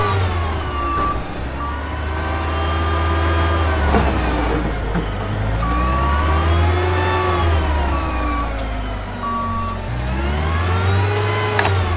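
Heavy vehicle engine revving up and falling back in slow swells, about three times, over a steady low rumble, with a reversing beeper sounding intermittently near the start and again in the middle.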